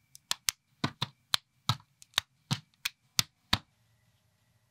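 Unofficial Lego-compatible plastic bricks being snapped together by hand: a quick, uneven series of about a dozen sharp clicks that stops about three and a half seconds in.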